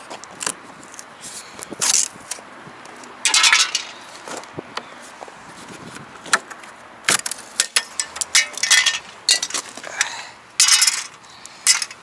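Irregular sharp clinks and knocks of hard objects being handled, with a few short scraping sounds, the longest about three seconds in and again near the end.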